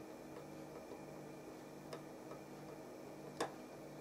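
Screwdriver turning a trimmer potentiometer on a circuit board, giving a few small sharp clicks, the loudest about three and a half seconds in, over a faint low hum.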